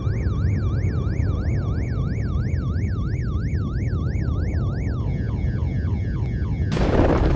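Emergency siren in rapid yelp mode, wailing up and down about three times a second over a steady deep rumble. About five seconds in, the siren changes to short falling sweeps, and near the end a sudden loud burst of noise cuts in.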